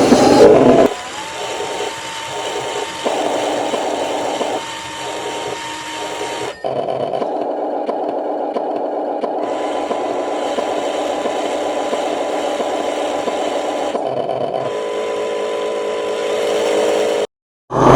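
Small electric motor and gearing of an RC construction machine running steadily with a high whine, stopping briefly twice early on and changing abruptly a few times, with a short dropout near the end.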